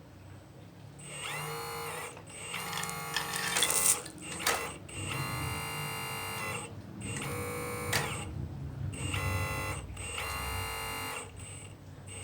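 Hydraulic pump motor of a scale RC model excavator whining in about six stop-start bursts of one to two seconds each, as the controls are worked, with a few sharp clicks around four seconds in.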